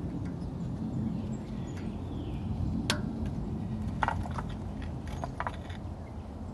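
Light metallic clicks and taps from handling Mercedes W220 brake caliper parts, the pad retaining pin and the pad wear-sensor connector, with a sharp click about three seconds in and a few more around four and five seconds. A steady low rumble runs underneath.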